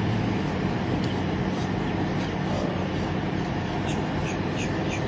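Steady noise of road traffic with a low engine hum.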